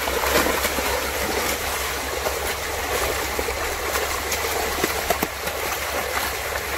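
A crowd of large fish thrashing and leaping in the shallow water of a drawn-in fishing net: a continuous churning splash with many small slaps and spatters.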